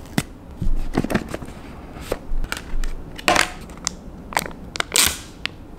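Small white cardboard product box being opened by hand: packaging crinkling and crackling, with a scatter of sharp clicks and two longer rustling swishes, about a third of the way in and again near the end.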